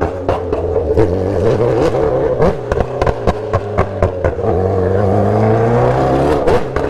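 Sport motorcycle engine running under way, steady at first and then revving up through the last couple of seconds. Its exhaust pops and crackles in sharp cracks scattered throughout.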